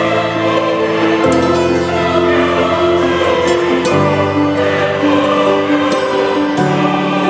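Background music: slow, sustained chords that change about every two and a half seconds.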